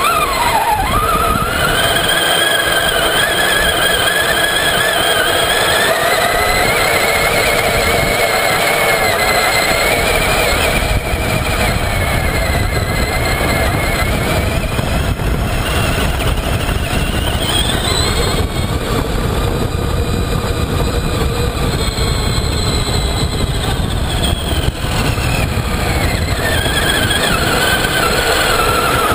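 Traxxas Summit RC truck driving, its electric motor and gearbox whining and sliding up and down in pitch as it speeds up and slows, over a rough low noise.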